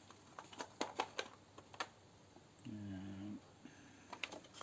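Small metal taps from a tap and die set clicking and clinking as they are handled and tried against a small threaded part, in a scattered run of light clicks. A short hum from a person comes about three seconds in.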